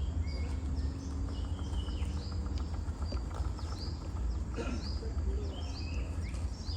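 Birds chirping: many short, quick, high notes repeated in a rapid chorus. Under them runs a steady low rumble.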